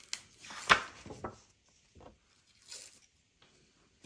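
Paper and plastic packaging being handled on a table: a few short rustling, crinkling bursts, the loudest and sharpest under a second in.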